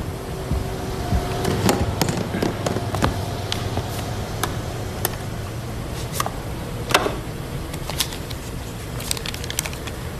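Scattered crackles and sharp clicks from a cardboard box being handled, over a steady low hum.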